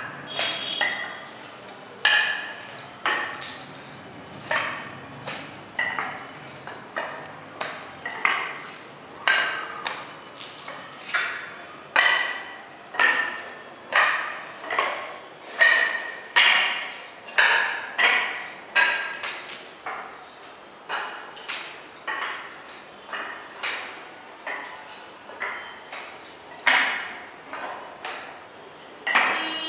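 Spiked shoes stepping across a wet epoxy floor coating: a steady walking rhythm of sharp clicks, each with a short ring, about one and a half steps a second.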